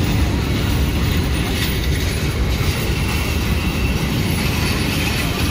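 Passenger train coaches rolling past at close range: a steady, loud rumble of steel wheels on the rails.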